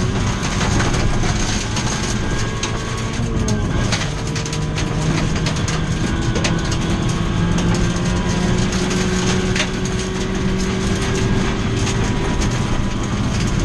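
Ford Fiesta V1600 rally car heard from inside the cabin at speed on gravel. The engine is under load; its note dips briefly about three and a half seconds in, then climbs slowly, while gravel ticks and rattles against the car.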